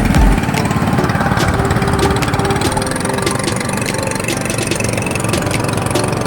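Small boat engine running steadily with a fast, even chugging.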